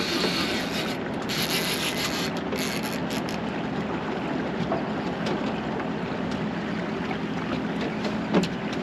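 Steady wind and water wash aboard a fishing boat at sea, with wind buffeting the microphone and a faint low hum underneath. The hiss is brighter for the first few seconds, then eases.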